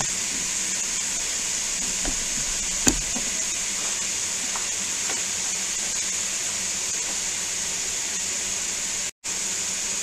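Diced bacon sizzling steadily as it renders in cooking oil in a pot on the stove, with one sharp tick about three seconds in. The sound cuts out briefly near the end.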